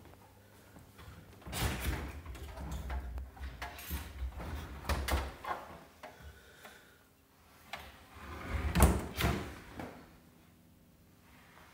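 Built-in fridge-freezer doors and drawers being opened and closed: a run of knocks and clatters in two bursts, the loudest about nine seconds in, with low handling rumble under the first burst.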